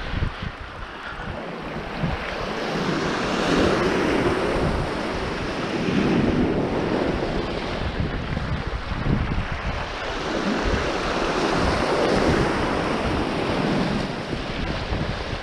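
Small surf breaking and washing in, swelling and fading every few seconds, with wind rumbling on the microphone.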